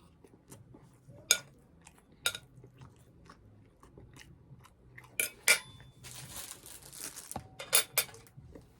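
A person chewing a mouthful of a microwaved steak and cheese sub, with several sharp mouth clicks and a brief rustle in the second half.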